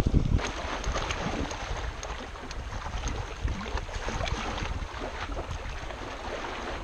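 Wind blowing across the microphone and small waves lapping and splashing on the rocky shoreline, a steady rush scattered with light splashes.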